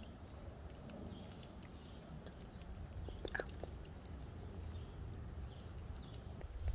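Gray squirrel chewing and gnawing food close to the microphone: a run of small crunching clicks, busiest about three seconds in, over a low steady rumble.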